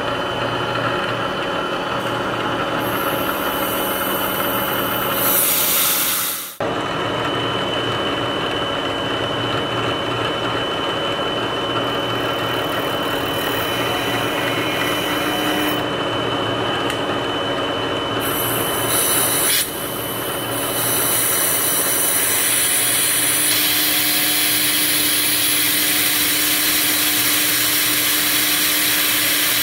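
Milling machine spindle running at about 2200 RPM with a 3/16-inch four-flute ball end mill cutting away the head of a stripped socket head cap screw, with compressed air hissing as it blows the chips clear. The sound breaks off sharply for a moment about six seconds in, and the air hiss grows louder about two-thirds of the way through.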